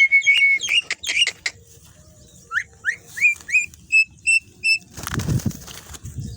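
Javan mynas calling with a series of whistles and chirps: first a held note broken by quick chirps, then rising whistles, then three clear, evenly spaced whistles. A low, rough sound comes in about five seconds in.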